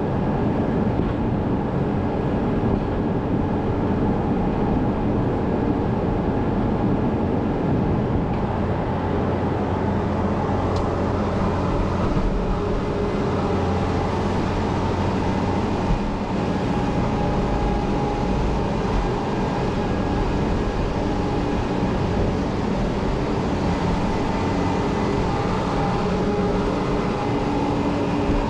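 Farm machinery running steadily: a continuous low engine-like rumble with a few steady tones over it.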